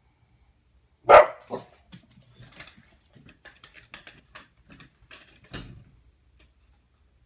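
A dog barking: two loud barks about a second in, a run of softer short sounds, then another bark near the end.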